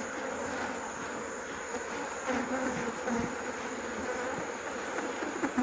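Many African honeybees buzzing around an opened hive in a steady, dense hum, stirred up by the inspection.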